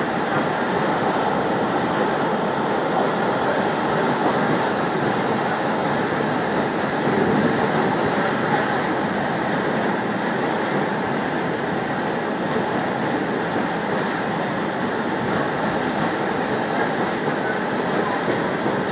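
Steady running noise of a moving train heard from on board: wheels rolling on the rails with a continuous rumble and no breaks.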